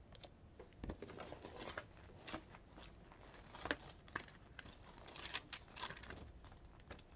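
Faint, irregular clicks and taps of a computer keyboard and mouse being used, some louder strokes near the middle.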